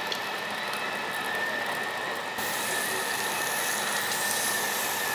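Pork sizzling on a tabletop barbecue grill: a steady hiss that turns brighter about two seconds in, with a thin steady high tone running underneath.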